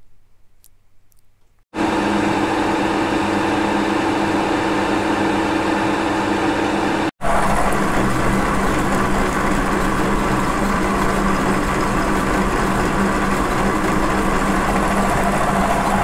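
Vertical milling machine running with its cutter machining a bronze valve seat: a loud, steady motor and spindle sound with cutting noise that starts about two seconds in and drops out for an instant about seven seconds in.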